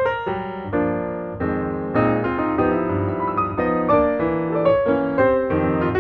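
Background piano music: quick successions of notes, then held chords for a couple of seconds in the middle, then quicker notes again near the end.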